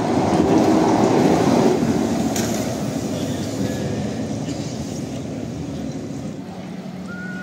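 A heavy vehicle passes close by on a city street. Its noise peaks about a second in and fades away, and a steady low hum comes in near the end.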